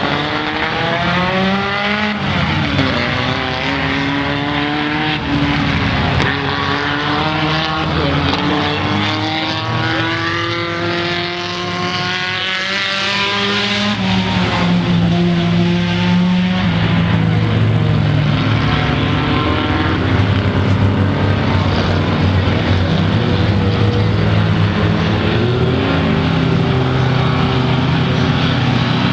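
Several mini stock race cars' engines running on a dirt oval, pitch rising and falling as they rev and pass. About halfway through, the engine sound settles into a steadier, lower drone.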